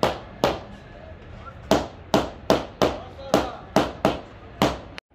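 A hand tool striking stone slabs in a string of sharp knocks, about two a second and unevenly spaced, as tiles are tapped into place on stone steps.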